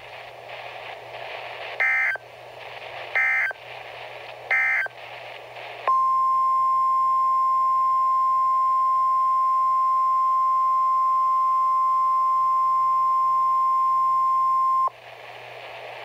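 NOAA weather radio broadcast through a Midland weather radio's speaker: hiss, then three short warbling SAME data bursts, the end-of-message code that closes the warning. About six seconds in, a steady high alert tone starts, holds for about nine seconds, then cuts off back to hiss.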